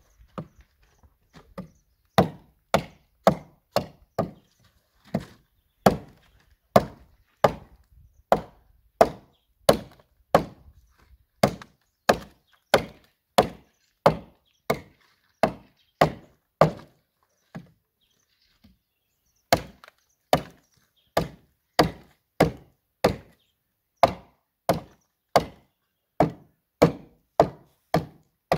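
Axe hewing along a pine log to split off a roofboard from its outer slab: a steady run of sharp chopping strokes into the wood, about three every two seconds, with a pause of a couple of seconds a little past the middle.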